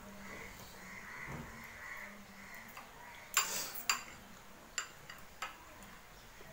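Eating sounds at a table as dhido and chicken curry are eaten by hand. A short, loud mouth noise comes about three and a half seconds in, followed by a few sharp clicks. A faint tone recurs in the background.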